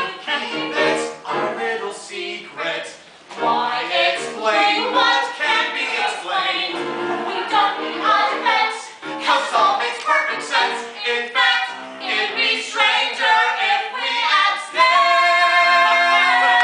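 Live musical-theatre duet: a man and a woman singing in short, quick phrases, then holding one long note together near the end.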